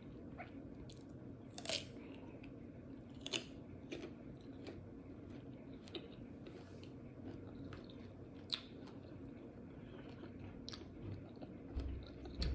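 A person chewing and biting crunchy food, mango with fried chilies: sharp crunches every second or few, over a faint steady hum.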